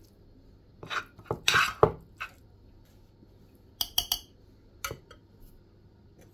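Metal spoon scraping fried chopped garlic out of a frying pan, with short scrapes and clinks against the pan. There is a cluster of scrapes a second or two in and a group of ringing clinks around four seconds in.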